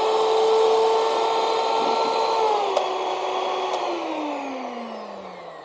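Miyako HM-620 190-watt hand mixer running empty with its beaters fitted, a steady motor whine at top (fifth) speed. About two and a half seconds in, with a click of the switch, the pitch drops a step. A second click near four seconds in switches it off, and the whine falls away as the motor winds down.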